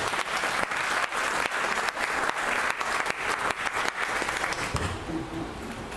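Audience applauding with many fast claps, dying away about four to five seconds in.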